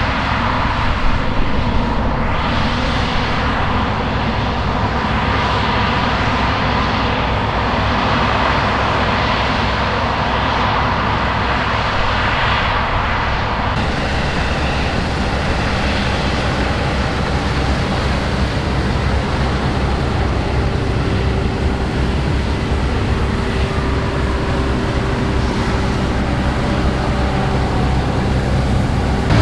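New Holland CR8.90 combine harvester running while harvesting wheat: a steady drone of engine and machinery, which changes character about halfway through.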